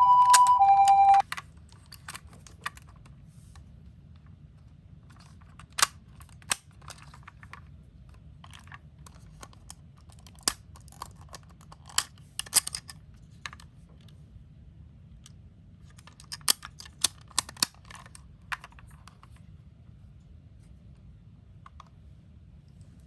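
A toy ambulance's electronic two-tone hi-lo siren cuts off suddenly about a second in. After that come scattered sharp clicks and clacks, some in quick clusters, from small toy cars being handled.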